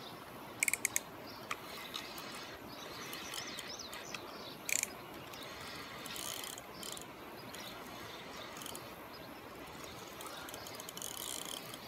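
Fishing reel clicking in short bursts, a quick cluster about half a second in and a single click near the middle, while a large catfish is played on the line, over a steady background hiss.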